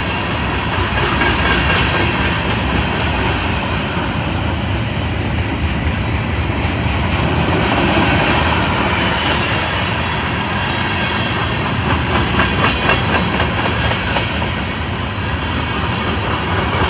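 Train passing: a steady rumble of wheels on the rails, with a run of quick clicks from the wheels over rail joints about twelve seconds in.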